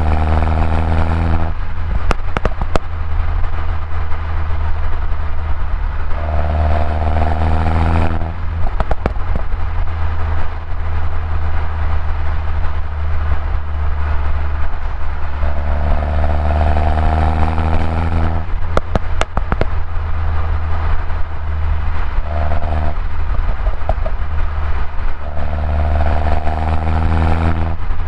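Mini Cooper S R56's turbocharged 1.6-litre four-cylinder on its stock exhaust, pulling hard in repeated bursts of acceleration, the engine note rising in pitch with each pull. Each time the throttle closes there is a short cluster of pops and crackles from the exhaust.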